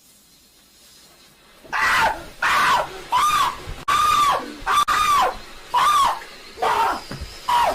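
A person screaming over and over, about seven short high screams that each rise and fall in pitch, starting about two seconds in.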